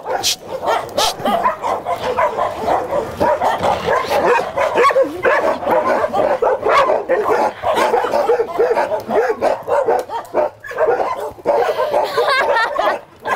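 A large pack of dogs barking together, many at once and without a break.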